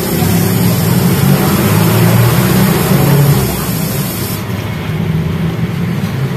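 A pan of fish paksiw boiling on the stove: bubbling and hissing over a steady low hum. The hiss drops away about four seconds in.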